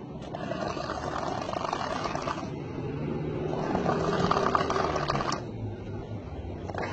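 A person snoring with a fast, rattling flutter: two long snores, the second stronger.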